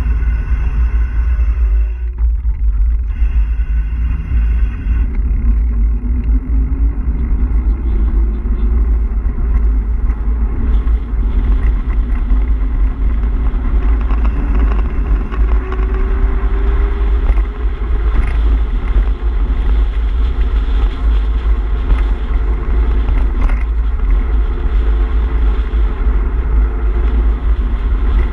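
Heavy, continuous wind buffeting on the camera microphone mixed with tyre rumble from a mountain bike rolling fast on tarmac. A faint hum rises slowly in pitch over the first half.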